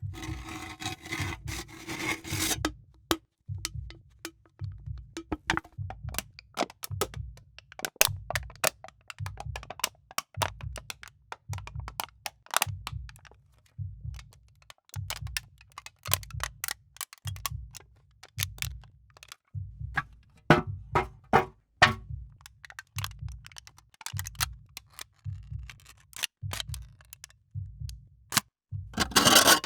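A rhythmic beat: a low bass pulse repeating about once a second, with sharp clicks, cracks and scrapes of an aluminium energy-drink can layered over it, and a denser clatter of can sounds at the start and again near the end.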